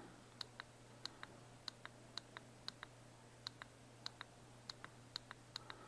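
Small push button on a RonGuan RGS65 soldering iron being pressed over and over to step the temperature setpoint up, giving faint clicks, mostly in pairs, about two pairs a second.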